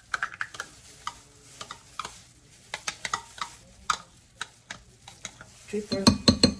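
A spoon stirring a thick mayonnaise-and-grated-cheese mixture in a bowl, with irregular small clicks and scrapes against the bowl. A louder clatter comes about six seconds in.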